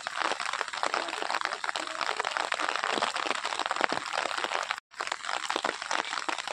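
Steady rain pattering, a dense crackle of drops, cutting out briefly about three-quarters of the way through.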